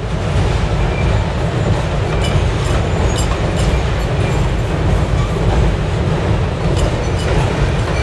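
Freight cars of a manifest train rolling across a girder railroad bridge: a steady low rumble of wheels and cars, with a few sharp metallic clacks scattered through it.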